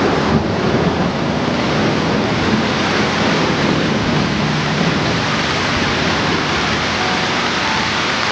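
Heavy rain falling steadily on trees and foliage, an even, dense hiss.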